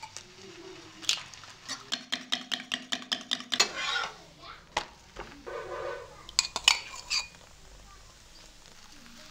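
An egg being beaten in a stainless steel tumbler, a metal utensil clinking rapidly against the ringing tumbler at about four strokes a second, then a few more clinks a little past the middle.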